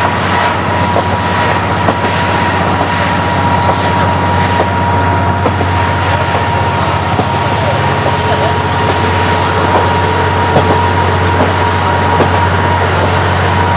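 KiHa 40 diesel railcar running along the line: a steady diesel drone under a constant high whine, with scattered rattles. Right at the end the whine drops away.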